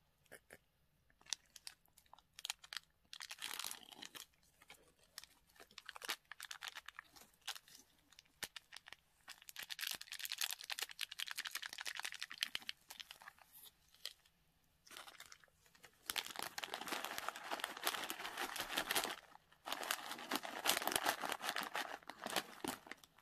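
Foil packaging crinkling and crackling in bursts as hands handle a bag of dry, crushed Ppushu Ppushu snack noodles and squeeze a small seasoning packet over them.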